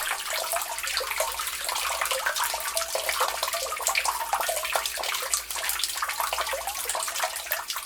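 Water running and splashing through a rain gutter and downspout: a steady gush peppered with small splashes.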